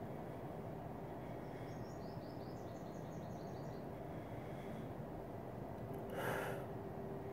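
Steady background hiss with a bird faintly chirping, a quick run of short high notes, from about a second and a half in to nearly four seconds. About six seconds in comes a brief burst of breathy noise, the loudest moment.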